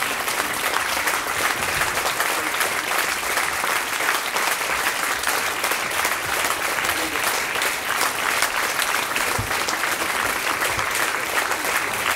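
Audience applauding: many people clapping together at an even, sustained level.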